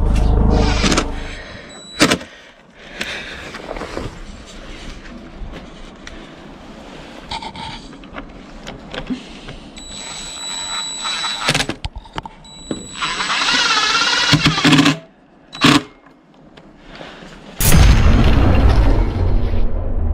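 A drill driving screws into a vinyl railing post, whining in short runs with a loud wavering high whine for a couple of seconds. Near the end, music cuts in abruptly.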